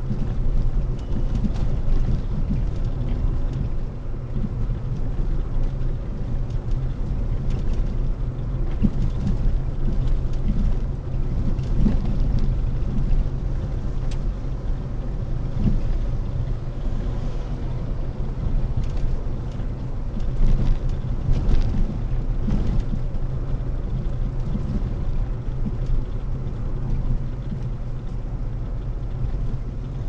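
Car on the move: a steady low rumble of engine and road noise, with scattered faint knocks.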